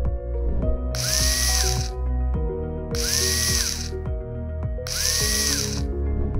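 Cordless drill running in three short bursts of about a second each, spaced about two seconds apart, its motor whine rising, holding and falling each time as it drives self-drilling hex-head screws into an aluminium profile. Background music plays throughout.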